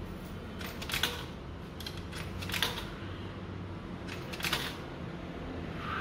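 Coins dropped one at a time into the coin slot of a Dexter commercial washer: a few sharp metallic clicks a second or two apart, over a low steady hum.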